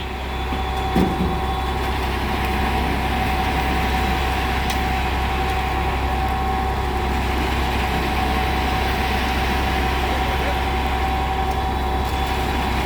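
Concrete mixer truck's diesel engine running steadily, with a constant whine over it. One knock about a second in.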